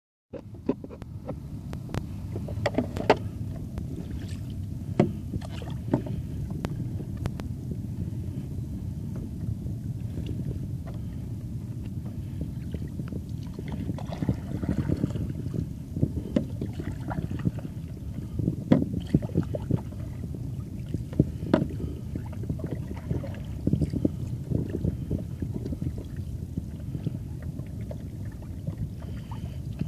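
Stand-up paddleboard being paddled, heard through a waterproof phone case hung around the paddler's neck: a steady muffled rumble with scattered knocks from the paddle strokes.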